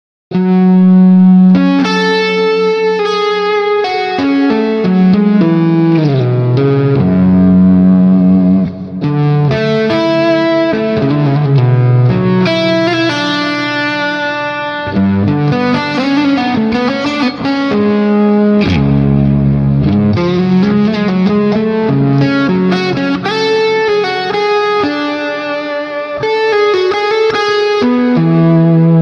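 Strandberg headless electric guitar played through an amp-simulator plugin with the reverb turned up: slow, mellow improvised licks, single notes ringing out long, some bent or slid in pitch.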